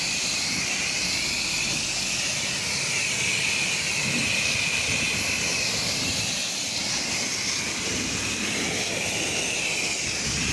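Pressure washer rinsing a surface: a steady hiss of the high-pressure water jet that wavers slightly as the spray moves.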